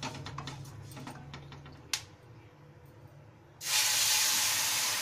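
Wooden spatula scraping and stirring ghee-roasted wheat flour and sugar in a non-stick kadai, with one sharp knock about two seconds in. Near the end water is poured in and hits the hot roasted flour and ghee with a sudden loud sizzling hiss that keeps on.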